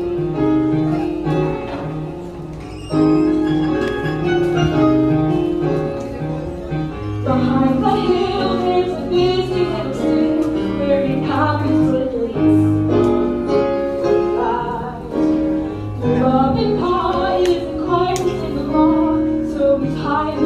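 Music with a repeating bass line and sustained chords, and a singing voice coming in about seven seconds in and again near the end.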